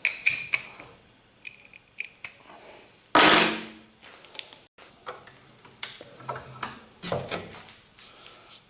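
Metal parts and tools handled on a workbench: scattered light clinks and knocks, with one louder clatter about three seconds in.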